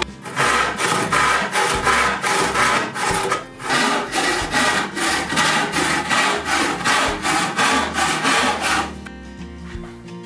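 Handsaw crosscutting a poplar board with quick, even strokes, about three a second, that stop about nine seconds in. Background music underneath.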